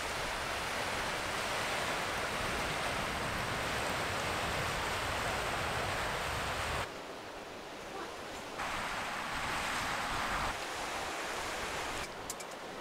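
Sea waves washing against a rocky shore, with wind, a steady rushing wash. It drops abruptly about seven seconds in and again near the end, then comes back quieter.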